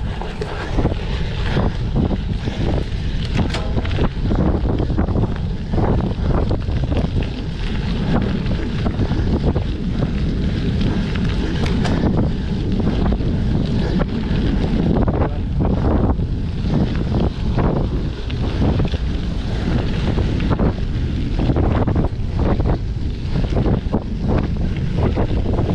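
Wind rushing over the microphone as a cyclocross bike rides fast over rough, bumpy ground. Frequent knocks and rattles come from the bike bouncing on the terrain.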